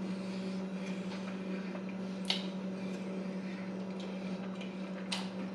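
Quiet eating sounds, soft chewing with a couple of small mouth clicks, over a steady low hum.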